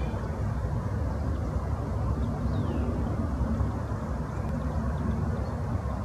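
Steady low rumbling background noise. A few faint, high, falling bird calls come through it.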